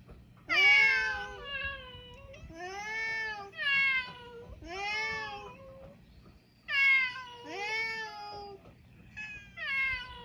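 Mixed-breed island cats meowing, a string of about eight separate meows, each rising and falling in pitch, the loudest about half a second in and another near seven seconds in.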